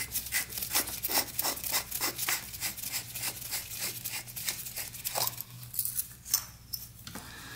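Gloved hands twisting a two-stroke dirt bike carburetor's threaded top cap: a fast, even run of small scraping clicks, about four or five a second. The clicks thin out about five seconds in.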